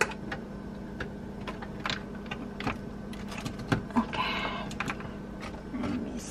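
Light, irregular clicks and taps, about two a second, from the control buttons of a Crock-Pot slow cooker being pressed to switch it on and set the timer. A faint steady hum runs underneath, and there is a brief rustle about four seconds in.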